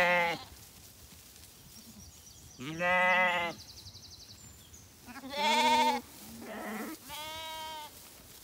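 Zwartbles lambs bleating: a string of about five wavering calls with short pauses between them.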